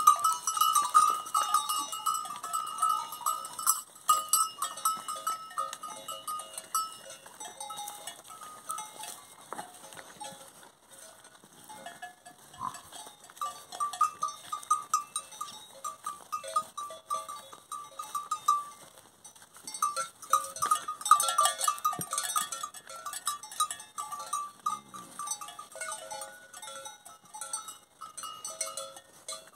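Animal calls: repeated short, high-pitched chirping calls in runs of several seconds over a steady high hiss, with a brief low call about 25 seconds in.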